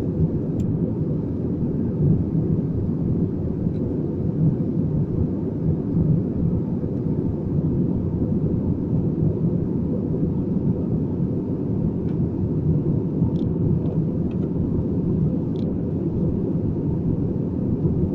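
Steady low drone of an Airbus A320 in flight, heard inside the passenger cabin: engine and airflow noise at an even level, with a faint steady hum above it.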